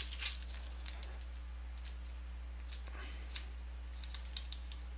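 Scattered light clicks and rustles of trading cards and plastic card sleeves being handled, over a steady low electrical hum.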